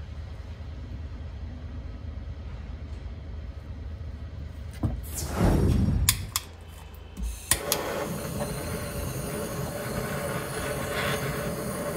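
Handheld butane cassette-gas torch lit by a few sharp clicks of its igniter between about six and seven and a half seconds in, then burning with a steady hiss. Before this there is a low steady rumble and a loud noise that sweeps downward in pitch.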